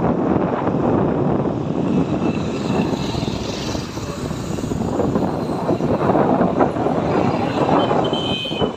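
Vehicle travelling along a road: a steady, loud, rough rush of engine and road noise.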